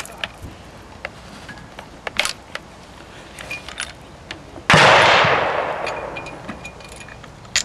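A single gunshot about two-thirds of the way through, sudden and loud with a long fading echo. Around it, sharp metallic clicks of a Snider-Enfield rifle's hammer and breech block being handled.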